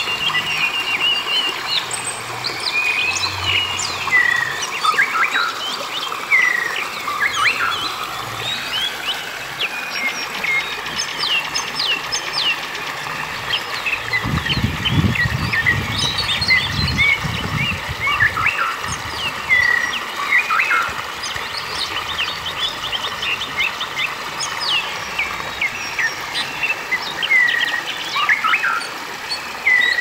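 Many birds chirping and calling, with short rising and falling whistled notes throughout, over a steady rush of stream water running over rocks. A rapid trill right at the start, and a low rumble for a few seconds around the middle.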